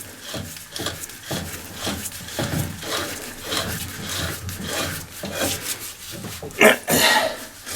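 Metal locking ring being wound by hand onto the threaded body of a hydraulic press ram, giving a series of irregular rasping, scraping strokes. A louder clunk comes near the end.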